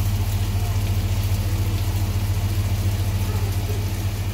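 A steady low hum, with the even hiss of pork and chicken sizzling on an electric griddle beneath it.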